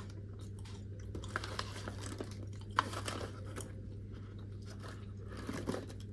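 Close-miked crunching and chewing of freeze-dried fruit, with irregular crisp bites and one sharp crunch about three seconds in.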